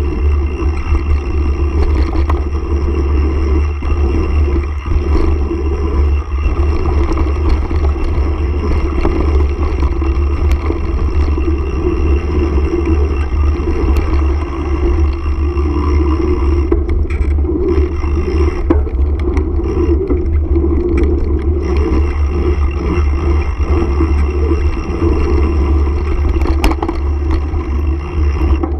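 Mountain bike rolling fast down a gravel trail: a loud, steady rush of wind buffeting the handlebar-mounted camera's microphone over the rumble of tyres on gravel, with scattered clicks and rattles from the bike.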